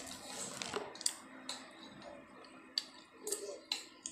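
Metal spoons and forks clicking and scraping against plates as food is scooped up: a handful of light, scattered clicks.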